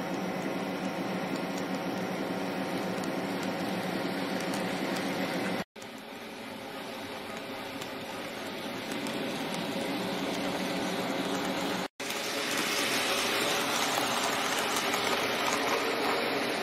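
Simulated diesel railcar engine sound from a model-railway sound unit, cut off abruptly twice. It starts as a steady idling hum, builds up gradually after the first cut, and after the second cut runs louder and hissier, like a railcar under way.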